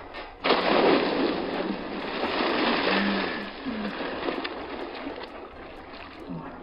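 A person plunging into a filled inflatable paddling pool about half a second in: a sudden loud splash, then water churning and sloshing that slowly dies down.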